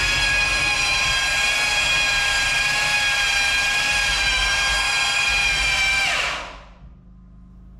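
Bauer cordless belt sander motor running with a steady whine, then winding down in pitch and stopping a little over six seconds in.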